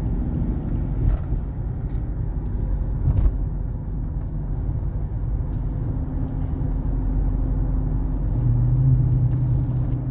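Dodge Charger heard from inside the cabin while driving: a steady low rumble of road and engine noise, with a few faint clicks. The engine note swells near the end.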